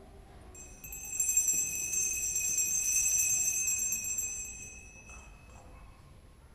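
Altar bells (a set of small Sanctus bells) shaken in a jingling ring for about four and a half seconds, starting about half a second in and fading out near the end: the bell rung at the elevation of the consecrated host during the Eucharistic Prayer.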